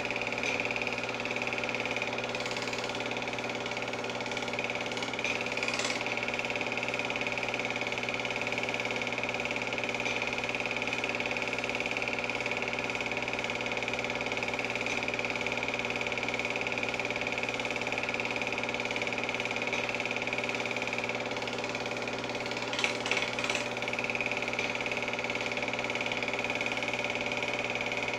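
Film projector running: a steady mechanical whirr and clatter from its motor and film-advance mechanism, with a few brief clicks, the loudest about three-quarters of the way through.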